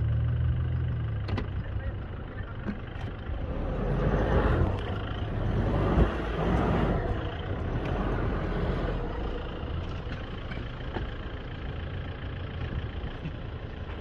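Pickup truck engine running in sand dunes, swelling louder about four to seven seconds in and then easing back.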